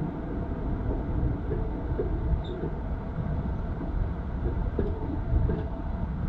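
A train running along the line: a steady low rumble.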